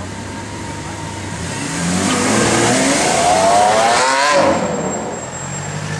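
Lamborghini Aventador LP700-4's V12 accelerating away in a short pull. The engine note climbs for about two seconds and then breaks off, and the sound falls away as the car moves off.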